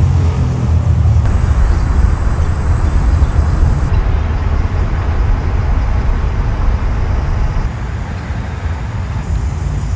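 Steady road traffic noise with a strong low rumble, easing slightly near the end.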